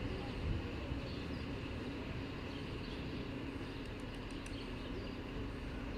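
Duewag BR928 diesel railcar idling steadily, a constant low hum. Faint bird chirps are heard over it.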